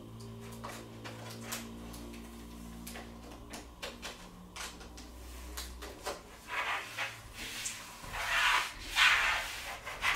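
Large self-adhesive vinyl sheet being peeled back and handled against a sliding wardrobe door, with light clicks and taps. Several louder crackling rustles come in the second half as the sheet is pulled off and smoothed on again.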